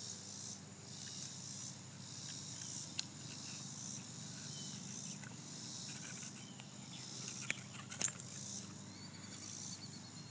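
A steady, high-pitched chorus of insects, with a few sharp clicks from handling the fish and pliers, the loudest about eight seconds in.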